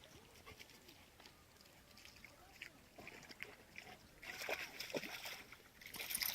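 Dogs wading in lake water: faint sloshing and splashing, louder about four seconds in and again near the end.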